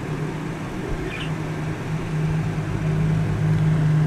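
Steady low machine hum over a constant background noise, with a faint short high chirp about a second in.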